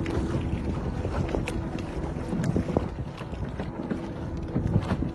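Motor yacht under way on open water: a steady rush of water and wind buffeting the microphone, with scattered sharp ticks.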